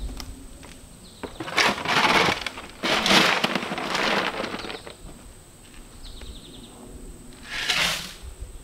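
A shovel scraping and scooping dirt in a wheelbarrow: several gritty scrapes, with a longer one a few seconds in and a last one near the end. Faint insect chirps run underneath.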